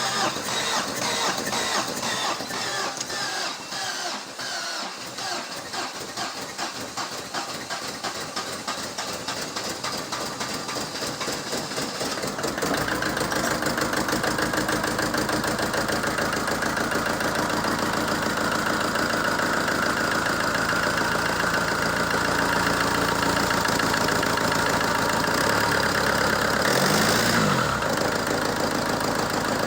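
ZMZ-514 four-cylinder turbodiesel cranked by the starter for about twelve seconds, pulsing unevenly as it tries to catch, then starting and settling into a steady idle. Near the end it is revved once, briefly, and drops back to idle.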